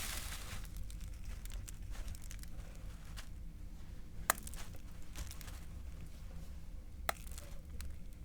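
Silicone Pop It fidget toy being handled and its bubbles pressed: faint rustling, with two sharp pops, one about halfway through and one near the end.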